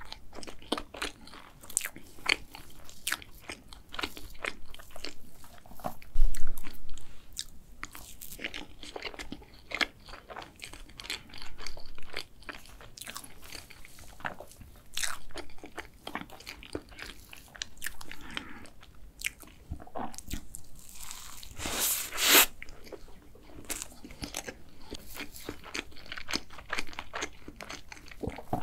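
Close-miked eating of chocolate cake: chewing, biting and small crunches, with a wooden spoon scooping into the cake. A low knock about six seconds in is the loudest sound, and a longer rustling scrape comes about three quarters of the way through.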